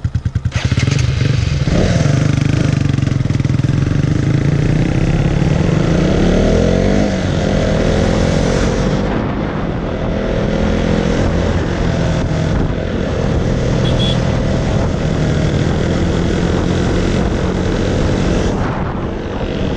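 KTM Duke 200's single-cylinder four-stroke engine ticking over briefly, then revving hard as the bike pulls away and accelerates, the engine pitch rising and dropping briefly about nine seconds in; it then runs steadily at speed.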